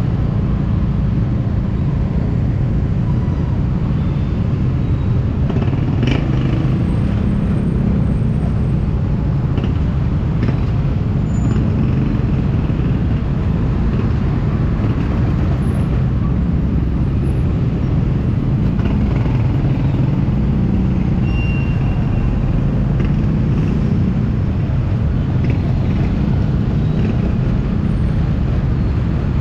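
Steady low rumble of slow city traffic heard from a scooter: small motorcycle engines running at low speed, the scooter's own and those of motorcycle tricycles alongside, with a few faint clicks and short high tones.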